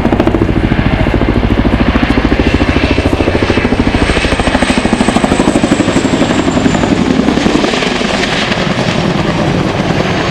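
Boeing Chinook twin-rotor helicopter flying a display pass close by: a fast, heavy rotor beat with a high whine above it, easing off slightly near the end.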